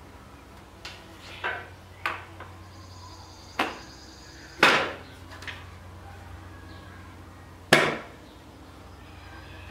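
About seven sharp knocks and clacks of a circular saw's depth adjustment being set and the saw being handled on the workbench, the two loudest about four and a half and seven and a half seconds in, over a steady low hum.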